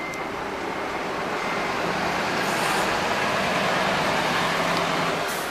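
Diesel city bus driving past at low speed, its engine hum and road noise growing louder as it comes alongside, with a short hiss of air about two and a half seconds in.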